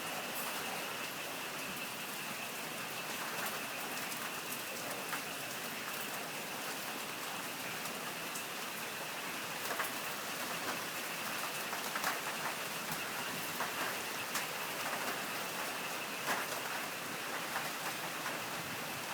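Heavy rain pouring down steadily, with single louder drops striking close by every so often.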